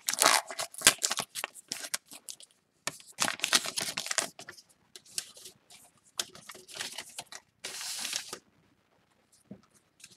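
Paper trading-card pack wrapper being torn open and crinkled in irregular crackling bursts, with the cards slid out, stopping about eight seconds in.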